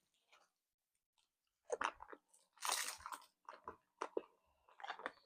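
Faint crunching and chewing of a hard candy in the mouth, in several short irregular bursts starting about two seconds in.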